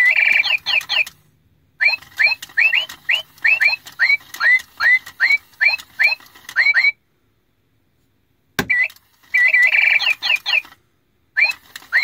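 Animated toy singing bird playing bird chirps through its small speaker: a repeating series of short rising whistled chirps, about two to three a second, with warbling trills at the start and again about ten seconds in. The chirping stops for a second and a half past the middle, then a click and it starts again.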